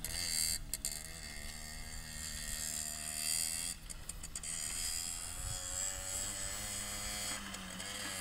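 Simson two-stroke moped engine running under load as it is ridden through long grass, its pitch wavering up and down with the throttle.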